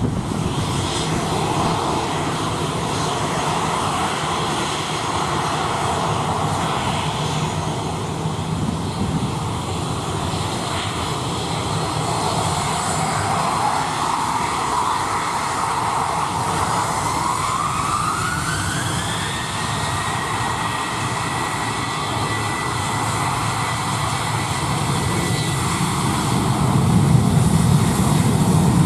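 Airliner engines running, a steady rumble with a whine that rises in pitch about two-thirds of the way through and then holds on one high note; the low rumble grows louder near the end.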